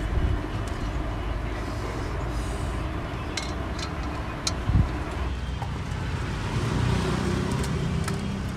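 Light metallic clicks, and one louder knock about five seconds in, as a Hyundai i20 diesel's clutch pressure plate and disc are worked loose from the flywheel by hand. Steady vehicle and traffic noise runs underneath.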